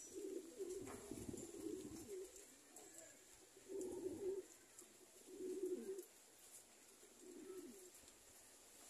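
Domestic pigeons cooing in low calls: a run of coos over the first two seconds, then three more bouts spaced through the rest.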